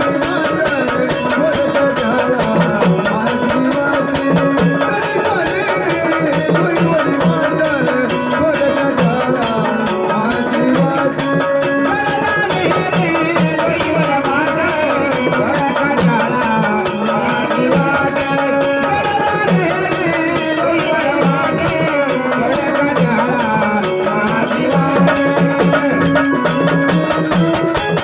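Marathi gondhal folk music with hand drums of the tabla kind keeping a quick, steady beat under a melody line that glides up and down.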